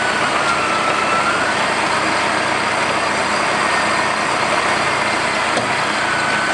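Land Rover Series 1 challenge truck's diesel engine running steadily under load while it winches a vehicle out of deep water, with a faint high whine that wavers gently in pitch.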